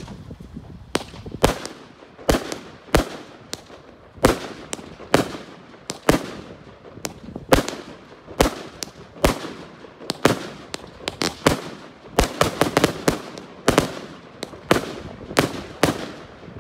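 Sonic Boom Loud & Proud 25-shot, half-inch-bore salute cake firing. Shells lift off on red and green tails and burst as loud salute bangs, in a rapid run of sharp reports, about one to three a second.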